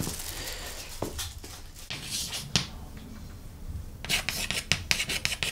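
Soft footsteps and rustling, then a rapid run of short clicks and scrapes in the last second and a half: chalk being tapped and drawn across a chalkboard.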